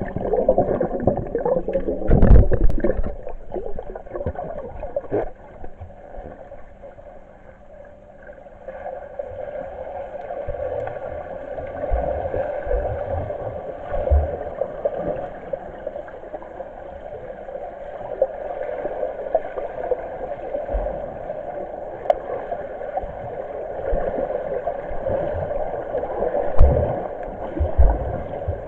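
Swimmers heard underwater in a pool: a steady muffled rush and churn of water, with a few dull low thumps as they turn and push off the wall, about 2 s in, around 14 s in and twice near the end.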